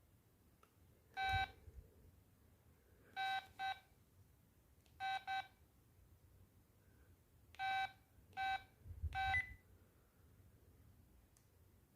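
LG MD5330 mobile phone's keypad tones: eight short beeps, all on the same pitch, at irregular intervals and sometimes in quick pairs, as keys are pressed to step through the menu. A dull knock comes under the first beep and again near the last.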